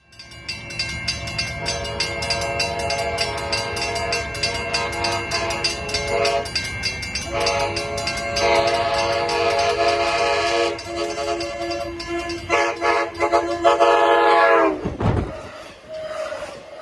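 Nathan K5LA five-chime air horn on an Amtrak Surfliner cab car sounding a long chord. It breaks off briefly about six seconds in, then sounds again until about fifteen seconds, where it cuts off.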